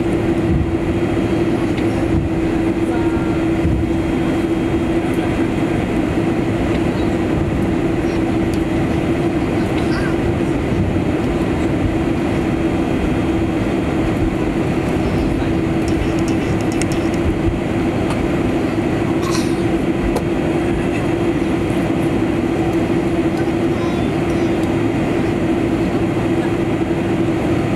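Cabin noise of a Boeing 747-400 taxiing: a steady engine drone at idle thrust over a low, even rumble from the airframe and wheels, with no change in level.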